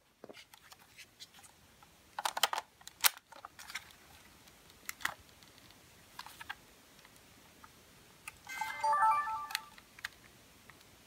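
Clicks and knocks of a Sony SDR-SR200 Handycam's plastic body being handled, then about eight and a half seconds in its short electronic start-up melody of stepped beeps, lasting about a second, as the camcorder powers on. The melody shows the repaired camera starting up.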